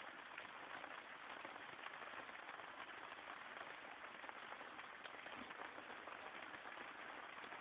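Faint steady hiss with light crackle and no distinct event.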